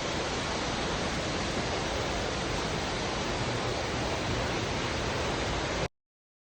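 Steady rushing hiss with no tone or rhythm in it, cutting off abruptly about six seconds in.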